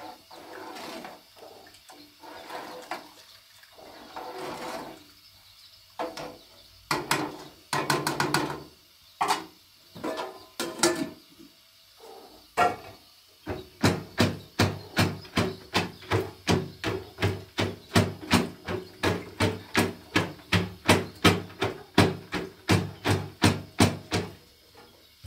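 Irregular rustling and clinking knocks of kitchen things being handled. About halfway in, a wooden pestle starts pounding in a container, a steady run of dull thuds about three a second, which stops just before the end.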